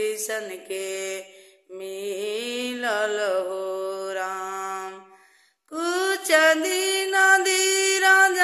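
A woman singing a Bhojpuri devotional bhajan unaccompanied, in long held, gently wavering notes. She pauses briefly about a second and a half in and again about five and a half seconds in.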